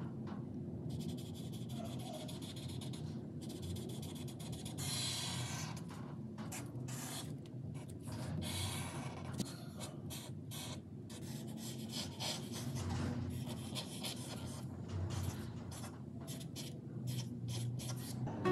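Snowman whiteboard marker's felt tip drawing on paper: scratching and rubbing in strokes, with short pauses between lines.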